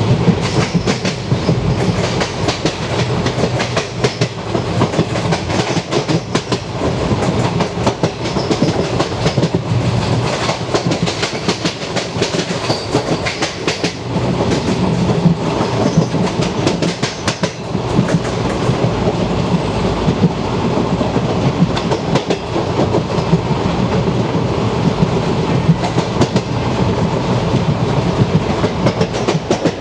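Vintage ICF passenger coach running at speed, heard from inside the coach: its wheels clatter over the rail joints in a steady stream of rapid, irregular clicks over a continuous rumble.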